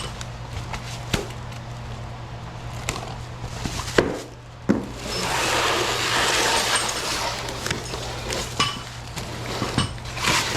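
Scattered knocks and clinks of parts being handled while a power rack is put together, with a louder rustling or scraping stretch in the middle, over a steady low hum.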